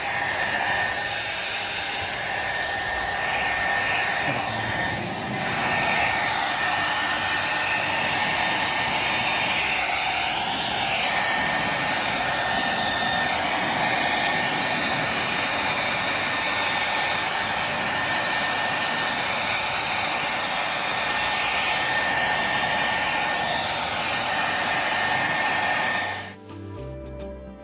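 Handheld hair dryer blowing steadily with a thin high whine, heating a car headlight to soften the adhesive of its tint film. It cuts off abruptly near the end, and music follows.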